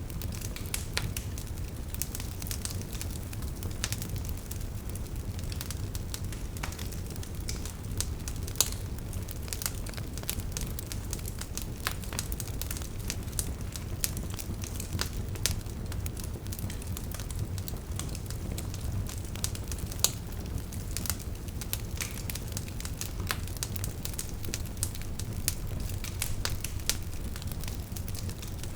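Wood fire burning in a fireplace: logs crackling with frequent irregular snaps and a few louder pops, over a steady low rumble of the flames.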